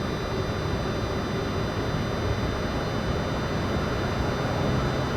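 Inside a Boeing 747-400 freighter's cockpit early in the takeoff roll: a steady rumble and rush of the engines at takeoff thrust and the heavy airframe rolling down the runway, growing slightly louder.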